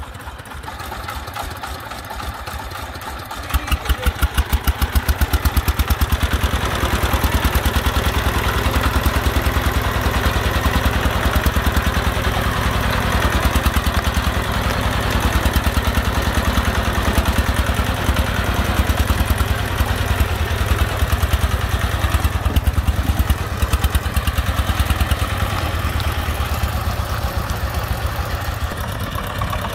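Single-cylinder diesel engine of a brick-loaded three-wheeled công nông farm truck chugging at a steady firing rhythm as it drives past close by. It grows louder about three and a half seconds in.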